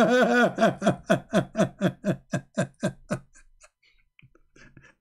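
A man laughing: a rhythmic run of 'ha' pulses, about four a second, that fades out after about three seconds, followed by a few faint clicks.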